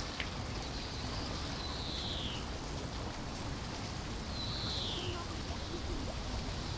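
Steady background noise with two high whistled notes, each falling in pitch, about two and a half seconds apart.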